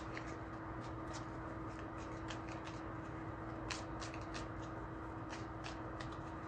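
Tarot cards being shuffled and handled: a run of faint, irregular flicks and clicks over a steady low hum.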